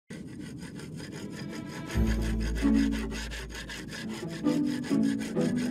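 Intro music: a fast, even scraping percussion rhythm, about eight strokes a second, joined about two seconds in by held bass notes and chords.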